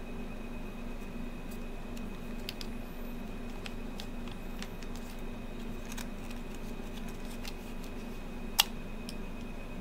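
Scattered light clicks and taps of small plastic items being handled, with one sharp, louder plastic click about eight and a half seconds in, over a steady low room hum.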